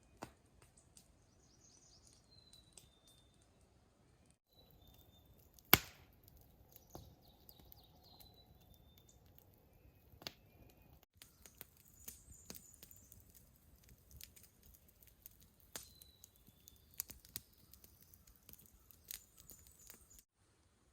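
Scattered sharp clicks and knocks of hands-on camp work, with one loud crack about six seconds in, over faint high chirps.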